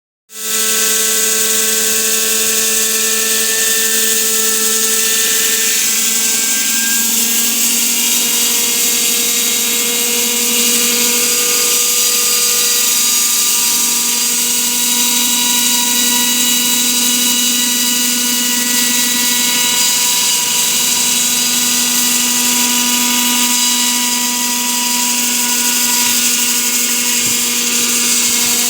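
Hilti hydraulic wall saw's diamond blade cutting a concrete floor slab: a loud, steady whine made of several tones that drift slightly in pitch, over a dense high hiss.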